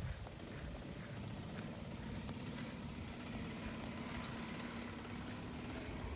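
Golf cart driving along a paved path, its motor giving a steady low hum from about a second and a half in until near the end, over a low rumble.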